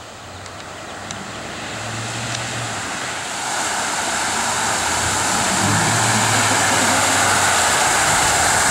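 Ford Raptor pickup truck driving through a flooded street, its tyres throwing up spray: a low engine hum under a rushing hiss of water that grows steadily louder as the truck approaches, loudest over the last few seconds.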